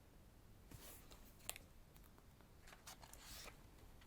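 Faint rustling of photobook pages being handled and turned, with a short sharp click about one and a half seconds in.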